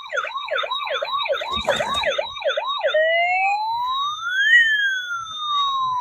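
Battery-powered toy police car's electronic siren: a fast warbling yelp, about two and a half cycles a second, that switches about three seconds in to a slow wail rising and then falling in pitch.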